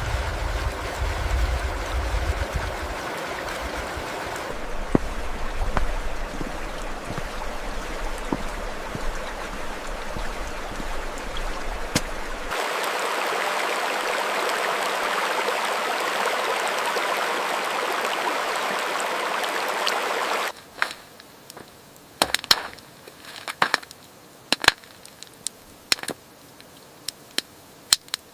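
Stream water rushing, with a low wind rumble under it for the first dozen seconds. The rumble then gives way to a steadier, brighter rush of water. About 20 seconds in, the sound cuts to a much quieter background with scattered sharp crackling clicks.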